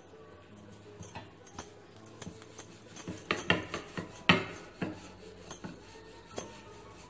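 Wooden rolling pin tapping and rolling over a disc of chapati dough on a granite countertop: scattered light knocks, with a quick cluster of louder clacks about three to four seconds in.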